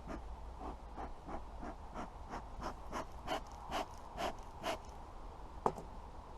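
Beekeeper's bellows smoker being pumped, giving short, airy puffs about two to three times a second to smoke the bees down into the hive. A single sharp click about five and a half seconds in.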